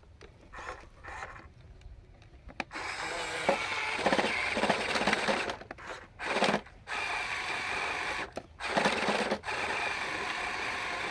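Huina 1573 RC dump truck's small electric motor and plastic gears whirring. The whirr starts about three seconds in and runs in several stretches, each cut off by a short gap.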